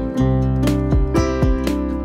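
Background music with plucked strings over a low held bass and a steady beat of about two strokes a second.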